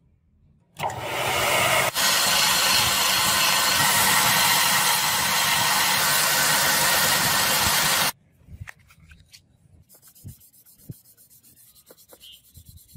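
Steady abrasive sanding noise that starts about a second in, runs for about seven seconds with one brief break, and cuts off abruptly, followed by a few faint clicks.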